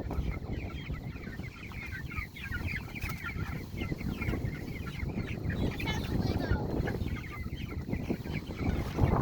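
A flock of young Cornish cross meat chicks peeping continuously, many short falling peeps overlapping, over a low rumble.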